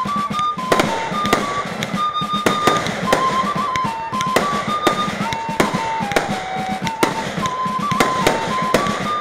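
A fireworks display bursting in many sharp bangs and crackles, about two or three a second at irregular intervals. Under it plays music with a simple melody of held notes stepping up and down.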